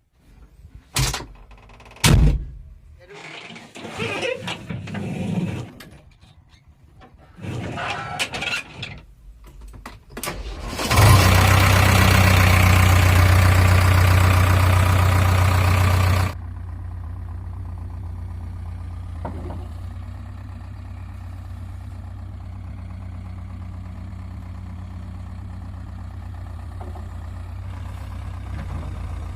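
A few clicks and knocks, then about eleven seconds in a diesel engine starts. It runs loud for about five seconds, then drops to a steady idle.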